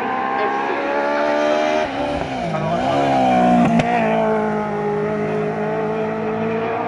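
Race car's engine under hard acceleration on a hill-climb, its pitch rising, then dipping sharply and climbing back about two seconds in, then holding high as the car passes.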